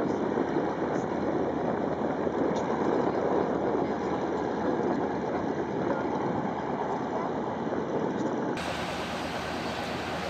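Steady rumble of propeller-aircraft engine noise with no clear pitch. About eight and a half seconds in, the sound cuts to a Junkers Ju 52 with its radial engines running.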